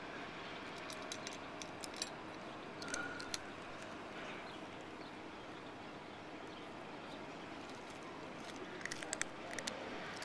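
A cat eating dry kibble from a metal bowl: scattered sharp crunches and clicks over a steady background hiss, with a quick cluster of them near the end.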